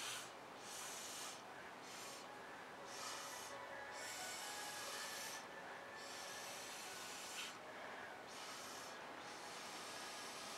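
A person blowing repeated long breaths onto wet acrylic pour paint to push it across the canvas, a faint airy hiss coming in puffs of about a second each with short pauses between.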